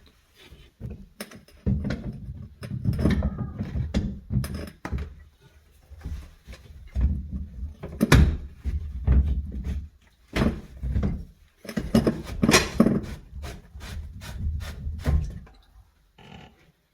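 Irregular knocks, clicks and rubbing from hands working a sink drain pipe inside a vanity cabinet as it is loosened and taken off.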